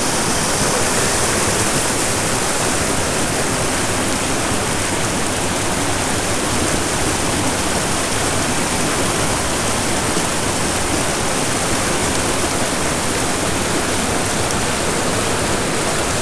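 Shallow creek rushing over rocks: a steady, loud wash of flowing water.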